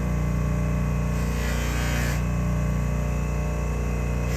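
Jeweller's polishing motor with a buffing wheel running steadily, a constant hum with a whirring hiss, as a ring is polished on the wheel.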